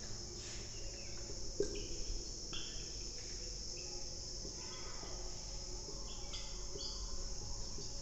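Dry-erase marker writing on a whiteboard: a series of short, high squeaks and scratches as each letter is stroked, over a steady high hiss.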